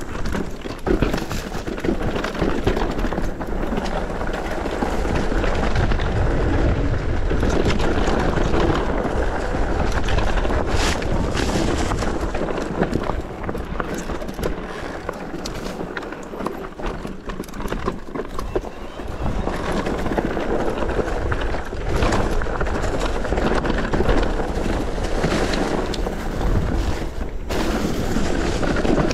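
Mountain bike riding downhill on a rough, stony dirt trail: steady tyre noise over gravel with frequent rattles and knocks from the bike, over a low rumble.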